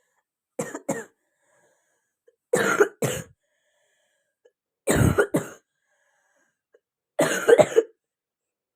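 A young girl coughing in four short fits about two seconds apart, most of them a quick double cough and the last one longer. The coughing comes from a cold she has had for two weeks.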